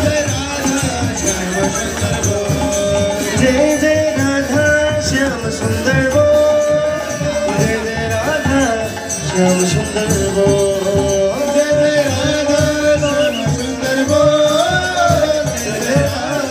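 Music: a voice singing a melody over a steady jingling percussion beat.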